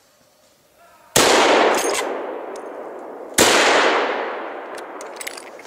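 Two hunting rifle shots about two seconds apart, each sharp crack followed by a long echo that slowly fades.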